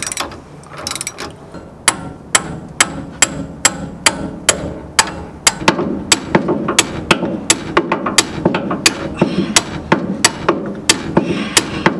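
Hand hammer striking steel under a truck, driving the pitman arm off the steering shaft: a steady run of sharp metal-on-metal blows, about two to three a second, starting about two seconds in.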